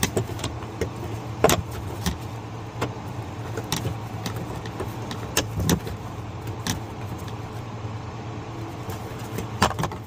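Scattered plastic clicks and taps as the cabin air filter housing cover is unclipped and worked loose by hand, with a few quick clicks near the end, over a steady low hum.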